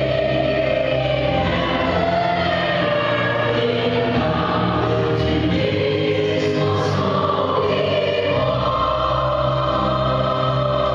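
A choir singing a hymn in long held notes over steady low accompaniment.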